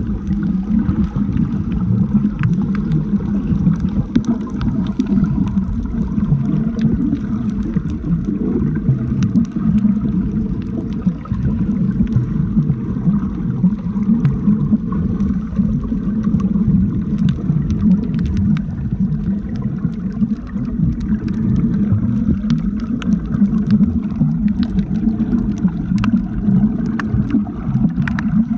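Muffled, steady underwater rumble of water moving around a camera's waterproof housing while snorkeling, with scattered faint sharp clicks.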